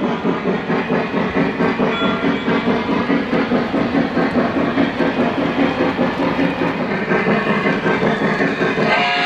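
Lionel 700E Hudson O-gauge model freight train rolling past, its wheels clattering in a steady rhythm. Just before the end, the locomotive's RailSounds steam whistle starts to blow.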